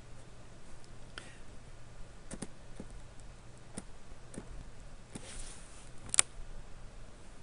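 Scattered computer mouse clicks and keyboard key taps, the loudest about six seconds in, over a low steady hum.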